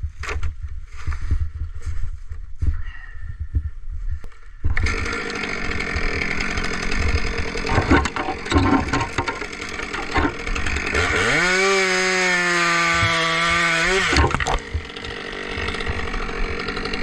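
Two-stroke chainsaw running hard. It comes in loud about a third of the way through, revs up to a high, steady whine for about three seconds past the middle, then drops back.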